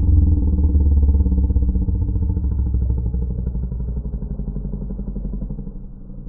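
Low, fast-pulsing rumbling drone with several stacked hum tones, loudest at first and slowly fading.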